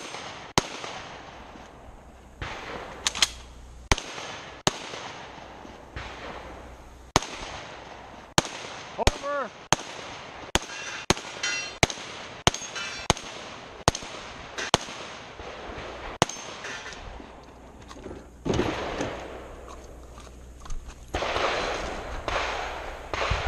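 Rapid gunshots from a 3-gun competitor working a stage, about two dozen shots at uneven half-second to one-second spacing. Some shots are followed by the brief ring of steel targets. There is a few-second gap in the shooting near the end.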